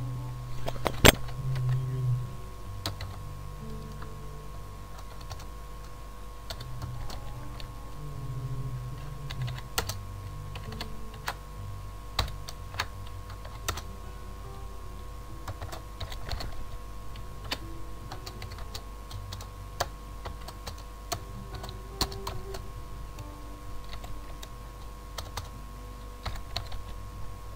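Computer keyboard typing: irregular keystrokes with short pauses, and one sharper, louder click about a second in.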